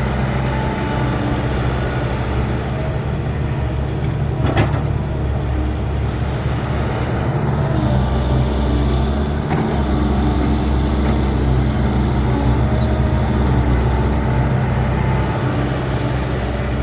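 Heavy diesel truck engine running steadily at low revs, with a single sharp knock about four and a half seconds in.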